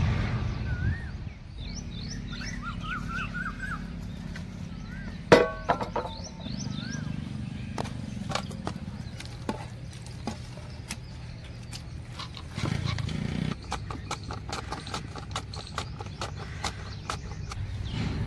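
Birds chirping in short rising and falling notes over a low steady hum, with one sharp knock about five seconds in. Then comes a run of small clicks and taps.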